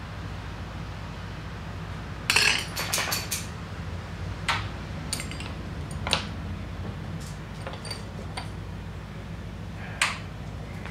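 Glass rods clinking against one another and on the metal-topped bench as they are handled: a quick run of clinks about two seconds in, then a few single clinks spaced out. A steady low hum runs underneath.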